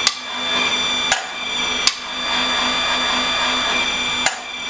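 Power Team hydraulic pump running steadily while it drives a ProTorc PTLC low-clearance hydraulic torque wrench on a 65 mm nut. Four sharp metallic clicks come as the wrench cycles: one at the start, one about a second in, one just after that, and one near the end.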